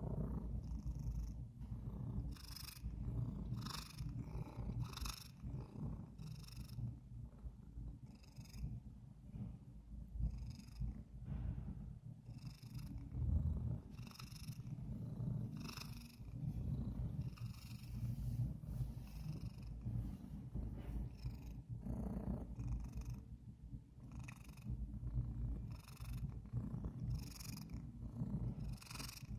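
A fat domestic cat purring steadily and loudly close up, with a hissy, rasping breath sound coming through about every one to two seconds.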